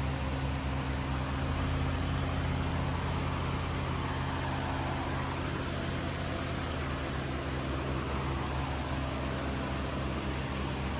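Vehicle engine idling steadily, an even low hum.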